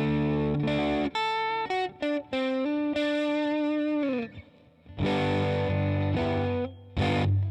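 Electric guitar played with a crunch tone, mildly overdriven through the Digitech RP55 modelling processor's amp simulation with spring reverb. Strummed chords open, then a single-note lead line whose long held note slides down in pitch near four seconds, then more chords from about five seconds in.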